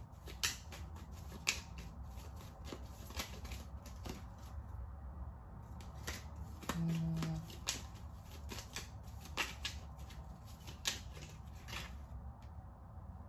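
A deck of cards being shuffled by hand: soft, irregular clicks and riffles of the cards. A brief low hum about halfway through.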